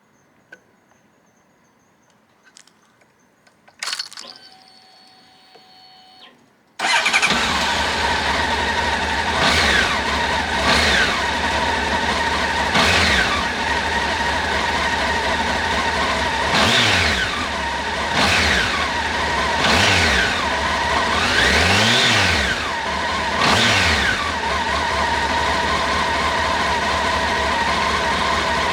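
A few quiet clicks, then a Honda CB1100SF X-11's inline-four engine comes in abruptly about seven seconds in. It is blipped several times, its pitch rising and falling with each rev, before it settles to a steady idle.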